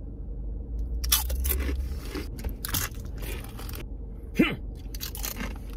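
Potato chips crunching as a person bites and chews them, several crisp crunches in a row. There is a brief vocal hum about four and a half seconds in.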